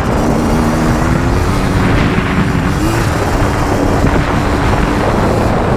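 Yamaha Blaster 200's two-stroke single-cylinder engine running while the ATV is ridden, its pitch wavering and rising briefly with the throttle. Heavy wind rumble on the microphone from the ride.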